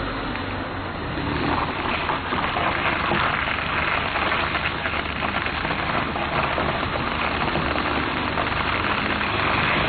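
Car tyres rolling slowly over loose gravel, a continuous crunching and crackling of stones under the tread, with a low engine hum underneath.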